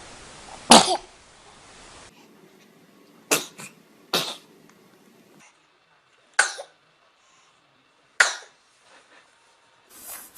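Babies sneezing: five short, sharp sneezes a couple of seconds apart, the first the loudest.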